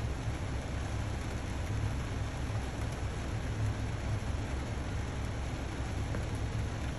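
Heavy rain falling on a car, heard from inside the cabin: a steady hiss of rain with a deep, unsteady rumble underneath.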